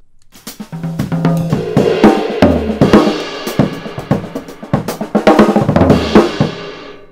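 A recorded drum kit playing back from an overhead microphone: snare, bass drum and cymbals in a groove. The mids are boosted sharply between 400 and 600 Hz, where the bad sounds of drum sets live, with the boost swept around 480–530 Hz to find them. The result sounds pretty bad.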